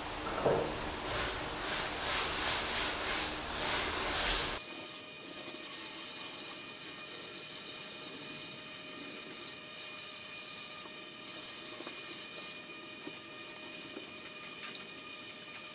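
Wooden fireplace mantle being hand-sanded with a sanding block: back-and-forth strokes about two to three a second. About four and a half seconds in, the strokes give way suddenly to a steady, quieter hiss.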